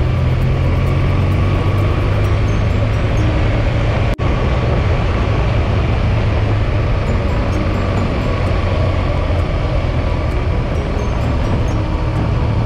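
Motorcycle running at a steady cruise: a constant engine drone mixed with wind noise. The sound drops out for an instant about four seconds in.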